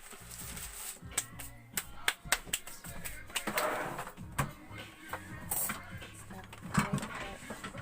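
Background music with steady low notes, overlaid by many short, sharp clicks and knocks that come irregularly throughout.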